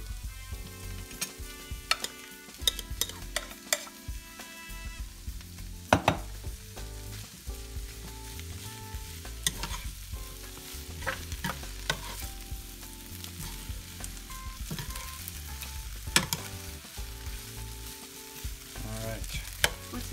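Diced potatoes sliding from a glass bowl into a hot nonstick skillet, then a plastic spoon stirring potatoes, roast beef and onions frying in butter. There is a steady sizzle with frequent clicks and knocks of the spoon and food against the pan, the sharpest about six seconds in and again near sixteen seconds.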